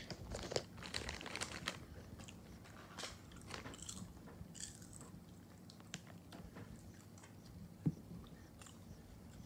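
Faint crunching of someone chewing popcorn close to the microphone, with scattered small clicks and a soft thump near the end.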